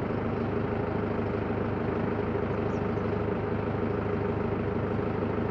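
Telehandler's diesel engine idling steadily, an even drone with a constant hum.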